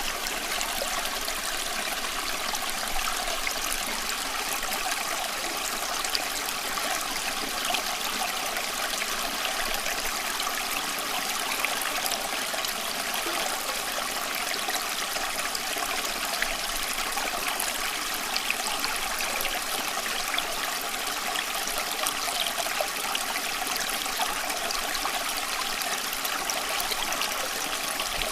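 Running water flowing steadily, an even rush with fine trickling and splashing through it, unchanging throughout.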